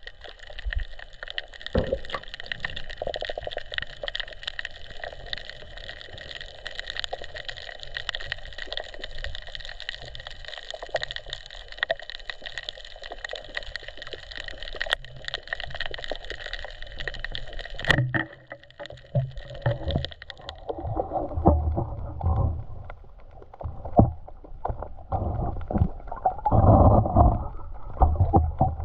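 Steady underwater crackling hiss heard through the camera housing. About eighteen seconds in comes a single sharp crack as the rubber-band speargun fires. Then the crackle stops and gives way to irregular low sloshing and knocking of water around the camera.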